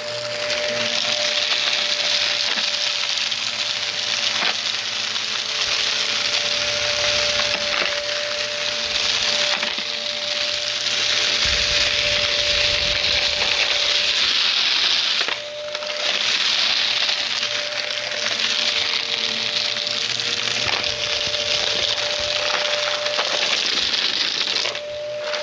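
Vacuum cleaner running with a steady motor whine, crackling as it sucks up crunchy debris. The sound dips briefly about 15 seconds in and again near the end.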